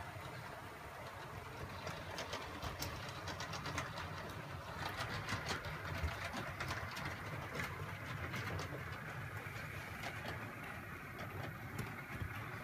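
OO gauge model diesel locomotive running on the track: a steady electric motor hum with frequent light clicks from the wheels on the rails.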